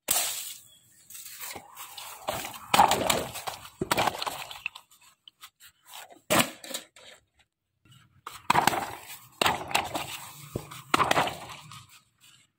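Inflated rubber balloons handled by hand: fingers rubbing and pressing on the rubber skin in irregular bursts, with a few sharp knocks.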